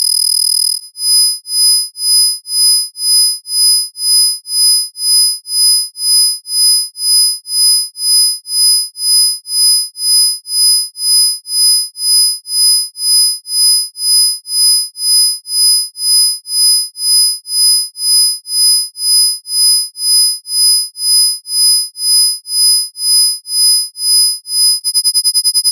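Electronically generated isochronic tones: high-pitched pure sine tones, with a fainter set of lower tones beneath, pulsing on and off about twice a second. About a second in the steady tone breaks into this pulsing, and near the end it switches to a much faster flutter.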